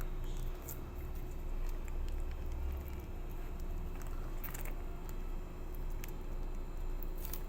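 A few light clicks and taps over a steady low hum.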